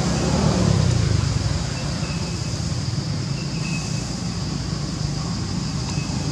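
Steady outdoor background rumble with a constant high hiss, and a few faint short high chirps.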